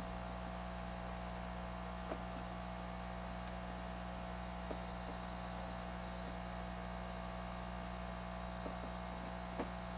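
Steady electrical mains hum, with a few faint small ticks.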